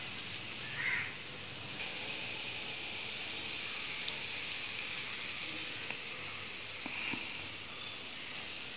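Puran poli (stuffed sweet flatbread) sizzling on a hot oiled nonstick tawa, a steady soft hiss of oil and escaping steam as the flatbread puffs up. A few light ticks of the spatula against the pan come through.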